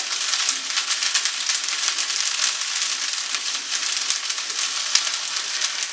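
Chow mein noodles and vegetables sizzling in a hot pan as they stir-fry, a steady hiss full of fine crackles.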